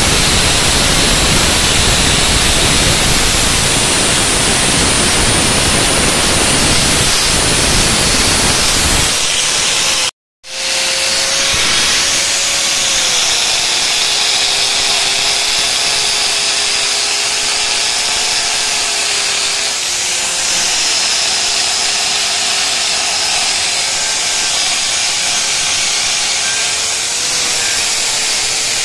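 Electric angle grinder grinding a Yamaha Mio Sporty scooter's steel exhaust muffler, first a harsh, rough grind over the rusty, painted metal, then, after a brief gap about ten seconds in, smoothing the bare metal. Its motor whine dips and rises a few times as it bears on the pipe.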